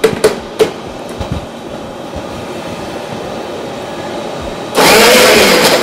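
Countertop blender switched on about three-quarters of the way in, its motor running loud and steady as it purées tomato quarters with vinegar and egg white. Before that there are a couple of clicks and a low steady background hum.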